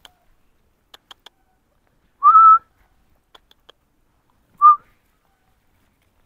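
Two short whistles from a person, a single clear note each: the first, about half a second long and rising slightly, comes a couple of seconds in, and a shorter one follows about two seconds later. A few faint ticks are scattered around them.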